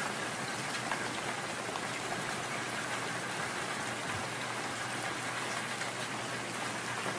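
Steady rain: an even hiss with faint scattered drop ticks, unchanging in level.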